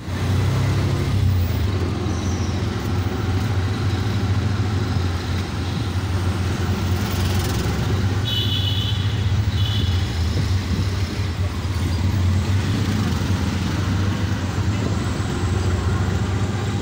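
Small engine of an auto-rickshaw (tuk-tuk) running with a steady low drone, heard from the open passenger seat with road and traffic noise. About eight seconds in, a short high-pitched tone sounds twice.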